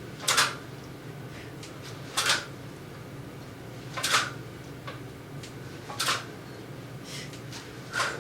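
A person breathing out hard in short, even puffs, one about every two seconds, in time with each rep of dumbbell thrusters, over a steady low hum.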